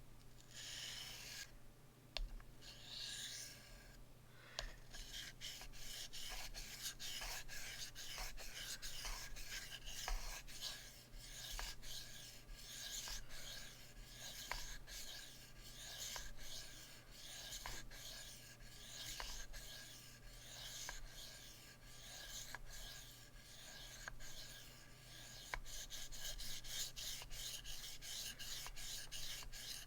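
S35VN steel knife blade being stroked back and forth on a sharpening stone in freehand sharpening, a steady run of rasping scrapes.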